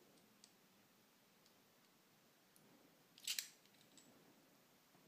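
Brass lock plug being slid into its brass cylinder housing, pushing out the steel follower rod: a short metallic scrape with a few clicks about three seconds in, otherwise near silence with faint ticks.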